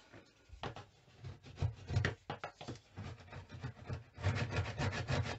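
A hand-held silicone-removal tool scraping old sealant out of the joint between wall tiles and a shower tray, in short irregular strokes, then a fast run of quick strokes from about four seconds in.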